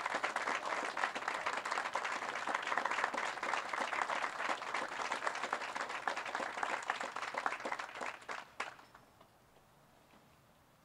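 A small crowd applauding, a dense patter of hand claps that dies away about eight and a half seconds in.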